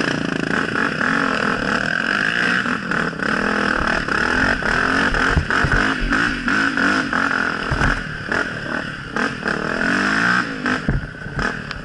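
Dirt-bike engine running and revving up and down as the bike rides over rough, muddy ground, with frequent short knocks and clatter from the bike bouncing over the track.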